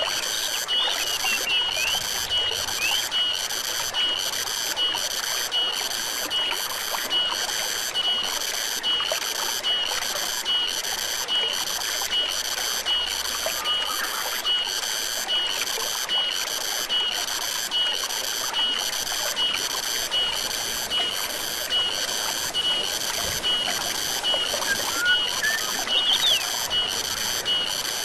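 Forest stream trickling under a steady chorus of insects pulsing in a regular rhythm, about three pulses every two seconds, with a few brief bird chirps.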